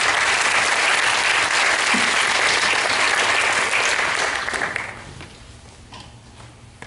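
Audience applauding at the end of a talk, a dense steady clapping that dies away about five seconds in.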